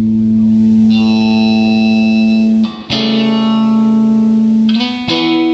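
A guitar playing slow, sustained chords that ring out, changing chord about three seconds in and again near the end.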